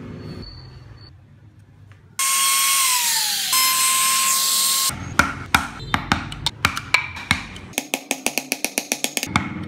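Handheld trim router starting suddenly about two seconds in and running at full speed as it cuts into a wooden strip, a loud hiss with a high whine. It stops at about the halfway point, and a rapid run of sharp taps follows, about four a second, as a chisel is struck to carve small wooden spoke shapes.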